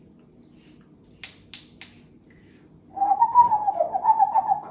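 African grey parrot vocalising: three sharp clicks about a second in, then a loud, wavering, warbling call lasting nearly two seconds, over a steady low hum.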